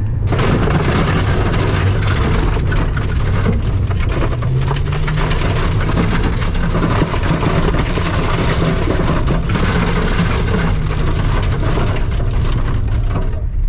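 Cabin noise of a first-generation Toyota Vios sedan driving on a loose gravel road: a steady rumble of tyres and engine with a constant patter of small stones flicking against the underbody and wheel arches. The engine note rises a little about four seconds in.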